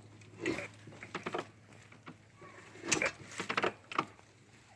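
Scattered light clicks and clunks of a dirt bike being handled, a few short knocks at uneven spacing with a small cluster late on.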